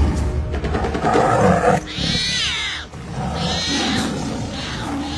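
Tiger roaring and growling, with loud, high-pitched alarm calls from forest animals breaking in about two seconds in and again near the end.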